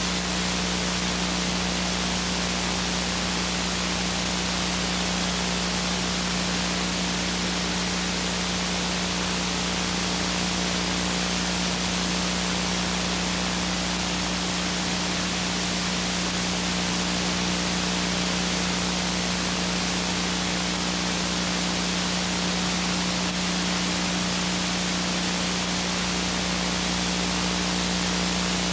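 Steady hiss of static with a constant low hum, the noise of a blank stretch of analogue videotape.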